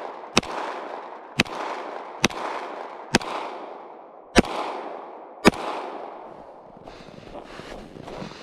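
Glock 40 pistol in 10mm Auto firing six shots about a second apart with 180-grain jacketed hollow points, each sharp report followed by a long echo that fades away.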